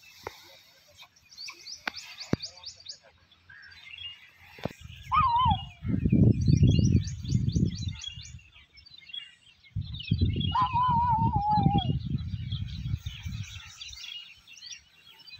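Birds chirping in quick repeated trills over an open field background. Twice, about five and ten seconds in, a loud rough low rumble lasts a couple of seconds, each opening with a short falling tone.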